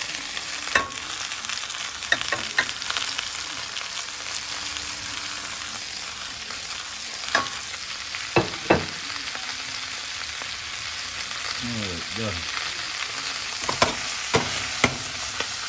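Chicken wings sizzling steadily in a stainless steel pot as chopped vegetables are scraped in from a ceramic plate, with sharp clinks of the plate against the pot's rim now and then.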